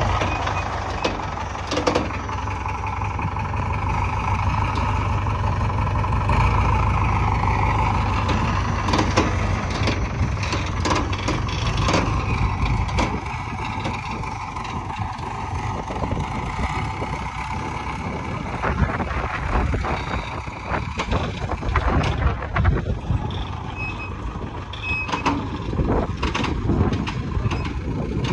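Diesel engine of a mobile crane running under load, its pitch drifting up and down as it works, with sharp clanks and knocks from the steel load and rigging. Short warning beeps sound near the end.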